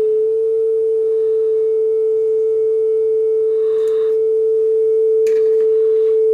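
Steady single test tone from a tone tape playing on a Pioneer CTF500 cassette deck, checked for speed and flutter after a new drive belt, while the tape speed is trimmed back up. Faint handling noises a few seconds in.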